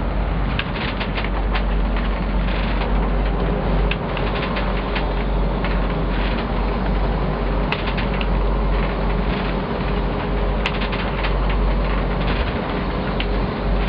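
Steady rumble of a sportfishing boat's engine running at idle under wind and sea noise, with irregular light clicks and rattles.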